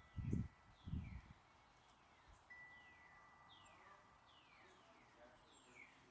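A songbird calling a run of quick down-slurred whistled notes, about two a second, from about halfway through. Two short low gusts of wind on the microphone sound near the start, and a wind chime rings out faintly.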